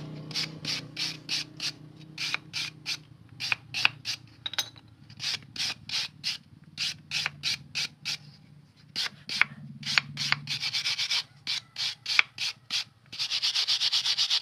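A motorcycle disc brake pad being scraped with a hand abrasive tool: single strokes about twice a second, turning to fast back-and-forth scrubbing near the end. The scraping cleans off metal flecks embedded in the pad, which the mechanic takes for the cause of the squealing brake.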